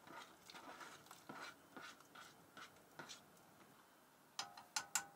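Faint light taps and scrapes as diced bacon is pushed off a flexible plastic cutting mat into a pot of water. About four seconds in, a metal utensil clinks several times against the enamelled cast-iron Dutch oven while stirring, each knock ringing briefly.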